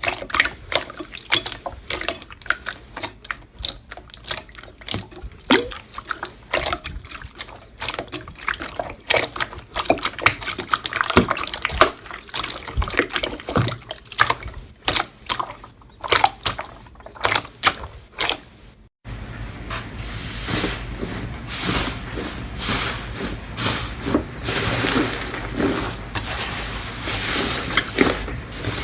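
Slime being squeezed and worked by hand, with irregular wet clicks and pops. About two-thirds of the way through it cuts to a denser, continuous crackling with pops.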